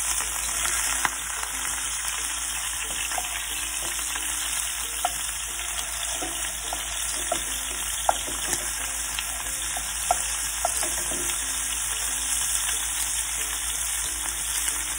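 Beef pieces searing in ghee in a hot frying pan on high heat: a steady sizzle. A wooden spoon turns the meat, with a few short sharp clicks scattered through.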